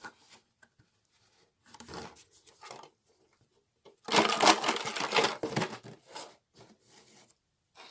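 Plastic milk bottle crinkling and knocking. A few faint rustles come first, then a dense stretch of crackling from about four seconds in lasting nearly two seconds, then a few short clicks.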